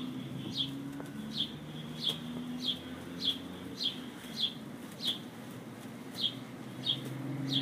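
A bird calling over and over: a short, high, falling chirp repeated evenly about one and a half times a second, over a low steady hum.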